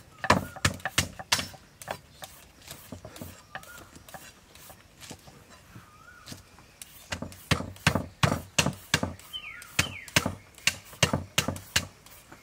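A cleaver chops long beans on a thick wooden chopping block, making rapid knocks: a short quick run at the start, a few scattered ones, then a fast steady run from about seven seconds in.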